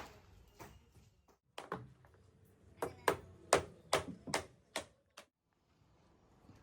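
A string of about ten sharp knocks at uneven spacing, the loudest bunched between about three and five seconds in.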